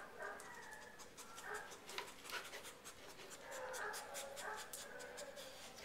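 A dog panting and sniffing while searching cardboard boxes for a scent, with short clicks and scuffs as its nose and paws knock the boxes.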